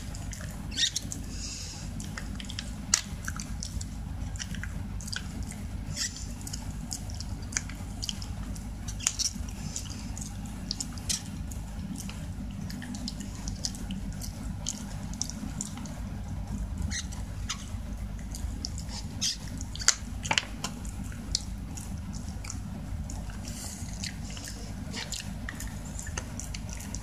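A Shiba Inu gnawing a stick-shaped dog chew, making irregular crunching clicks and wet chewing sounds, over a steady low hum.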